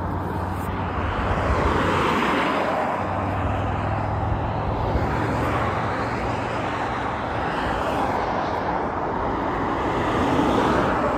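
Road traffic passing on a busy main road: a steady rush of tyre and engine noise that swells several times as cars go by.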